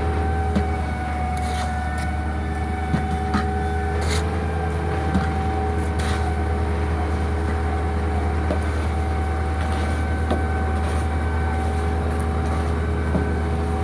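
Construction machinery running steadily: a constant low hum with a steady whine over it. Now and then come short scrapes and knocks of a shovel working mortar into a wheelbarrow.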